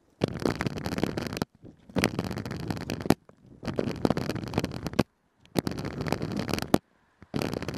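Roller-skate wheels rolling over concrete paving blocks, a rough rattle with sharp clicks at the joints. It comes in runs of about a second broken by short silences, as the skate lifts off with each stride: four runs, a fifth starting near the end.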